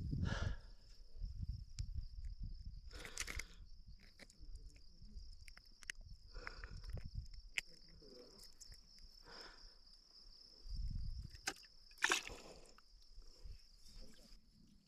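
Outdoor ambience with a steady high-pitched insect drone throughout, broken by bouts of low rumbling and a few scattered clicks and knocks, the sharpest about twelve seconds in.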